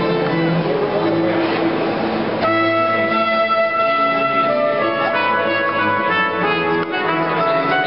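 Music led by brass instruments playing held chords, moving to new chords about two and a half seconds in.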